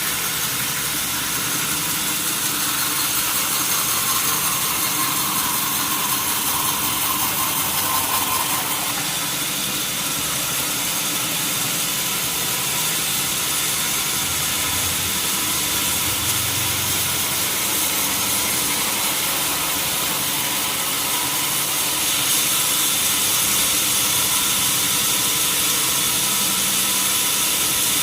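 Sawmill wheel saw (large band saw) and its motor running steadily with a strong high hiss, sawing wood. It grows a little louder about three-quarters of the way through.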